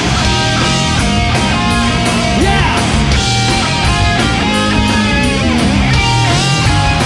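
Loud rock music with guitar and a steady drum beat, with a few sliding notes.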